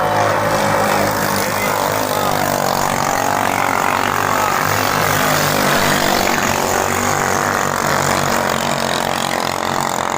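Several small Chinese-made petrol engines on ketinting longtail racing boats running flat out together, their overlapping pitches wavering slowly up and down.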